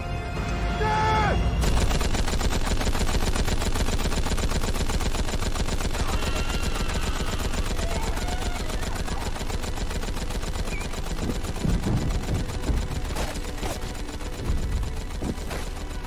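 Rapid, continuous battle gunfire: rifle fire and Gatling machine-gun fire, dense and unbroken, slowly fading toward the end.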